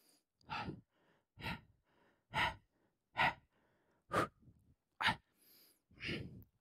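A man breathing out in short, hard puffs, about one a second, seven in all, from the effort of holding a side plank and pulsing his hips.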